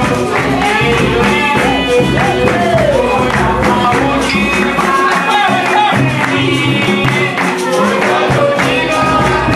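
Live capoeira roda music: group singing over a pandeiro (tambourine) rhythm, with hand clapping from the circle.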